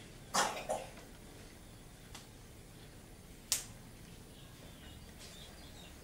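Air rifle sounds: a double knock about half a second in, a faint click near two seconds, and a single sharp crack about three and a half seconds in.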